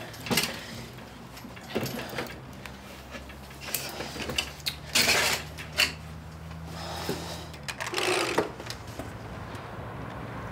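Scattered light knocks, clicks and rustles of things being handled, over a low steady hum that stops about eight seconds in.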